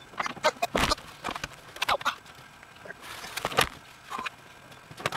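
Minivan bench seat being shifted and lifted out through the side door, with a handful of sharp clunks and knocks from its frame.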